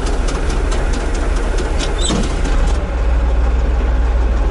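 Diesel engine of a T-150K tractor running steadily, heard from inside its cab as the tractor drives off, with light clicking rattles. The engine note grows a little louder about three seconds in.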